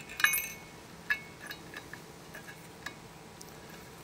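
Steel bolts clinking against a metal flange bearing and base plate as they are set into the mounting holes. A ringing clink comes about a quarter second in, followed by several lighter clicks and taps.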